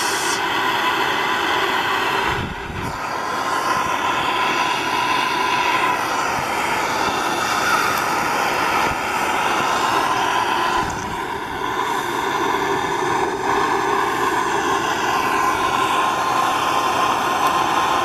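Hand-held propane torch burning steadily, its flame pushed into charcoal briquettes to light them.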